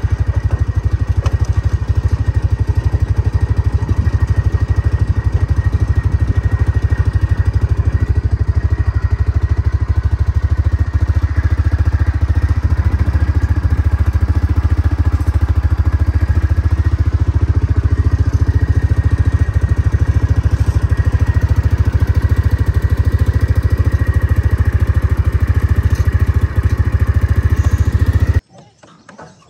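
Off-road vehicle's engine running steadily while driving along a rutted dirt road: a loud, even, low rumble that cuts off suddenly near the end.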